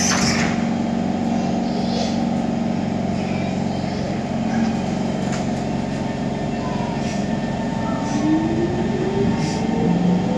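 SMRT Kawasaki C151 train running, heard from inside the car: a steady rumble of wheels and running gear with low steady motor tones, and a traction-motor whine that rises in pitch over the last couple of seconds.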